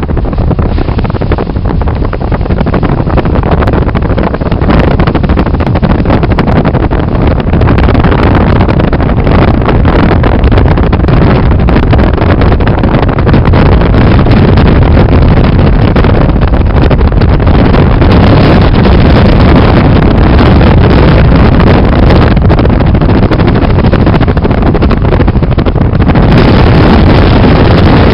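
Loud, steady low rumble with wind buffeting the microphone.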